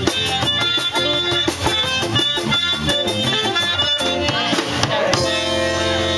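Live zydeco band music with guitar and a steady dance beat. About five seconds in the beat drops out, leaving held notes sounding.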